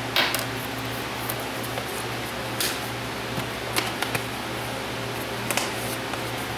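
A few light clicks and taps from spice jars being shaken over a bowl of ground meat, opened and set down, over a steady low room hum.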